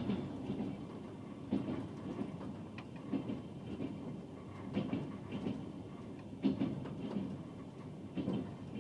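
Wheels of the Rossiya passenger train clicking over rail joints, heard from inside the carriage: a cluster of knocks about every one and a half seconds over a steady running rumble.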